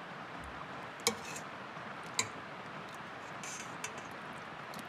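Metal ladle clinking against the rim of a stainless steel soup pot: two sharp clinks about a second apart, then a fainter tick, over a steady background hiss.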